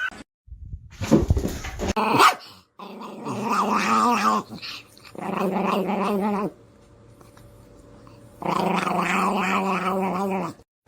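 A dog growling and grumbling in long, wavering, drawn-out calls, three spells of a second or two each, after a few short loud yips and noises about one to two seconds in.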